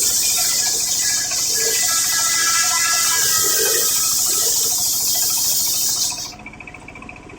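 Homemade circular saw blade ripping through coconut-palm wood: a loud hissing cut with a whine from the blade, starting suddenly and ending about six seconds in, while the machine keeps running steadily underneath.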